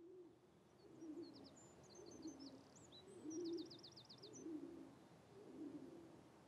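Faint dove cooing, a low phrase repeated about once a second, with a small songbird chirping and giving a quick high trill in the first half.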